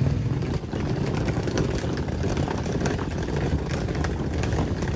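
Wheeled suitcases being pulled over rough paving, the wheels giving a steady rattling rumble.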